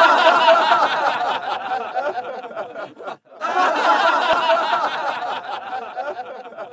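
A group of people laughing, in two bursts with a brief break about three seconds in, dying away near the end.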